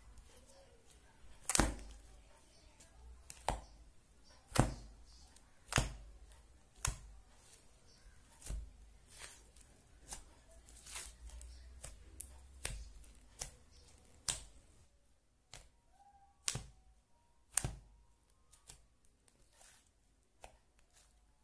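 Butter slime being pressed and poked by hand: an irregular string of sharp clicks and pops, about one a second.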